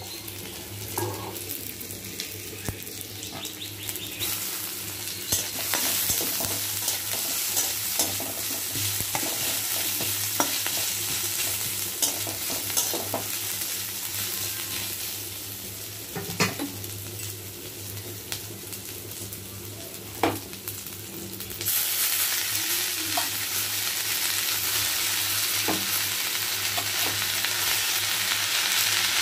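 Onions, garlic and a dried red chilli sizzling in oil in a metal kadai, with a spatula scraping and tapping the pan as they are stirred. About two-thirds of the way through, the sizzle gets suddenly louder and stays so, as the spinach greens go into the hot oil.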